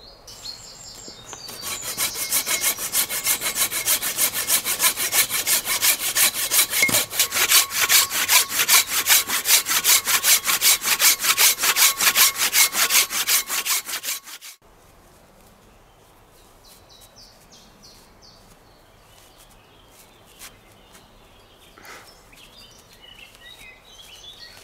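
Hand saw with a long blade cutting through a wooden log in quick, even back-and-forth strokes that stop suddenly about halfway through. After that come only faint rustles.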